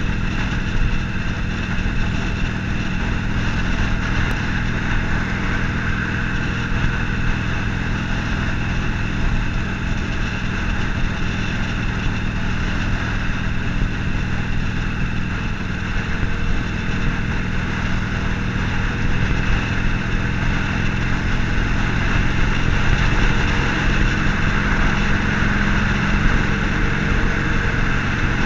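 Harley-Davidson Forty-Eight's air-cooled 1200 cc V-twin running at a steady cruising speed, heard from the rider's seat with road and wind rush.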